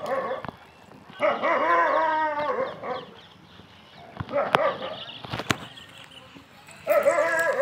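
A dog barking in three drawn-out, wavering bouts, with two sharp clicks in between.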